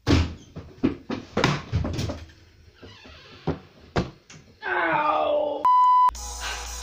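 A cardboard camera box knocked and shifted on a wooden table: a quick run of knocks and thumps, then a few more spaced out. Near the end a short pitched sound, then a test-tone beep of about half a second, the tone that goes with the colour-bar screen, cutting off abruptly.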